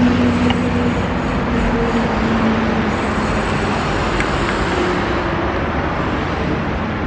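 Steady noise of road traffic, with a low engine hum that fades out about two seconds in.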